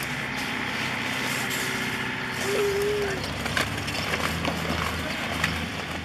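Strong wind buffeting the microphone as a steady rushing noise over a low hum, with a brief faint voice about halfway through.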